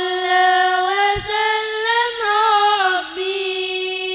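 A young woman singing solo and unaccompanied into a microphone, holding one long, slightly wavering note that rises a little in the middle and dips about three seconds in before settling.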